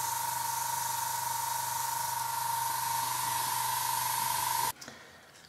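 Airbrush spraying paint: a steady hiss of air with a steady tone running through it, cutting off suddenly near the end.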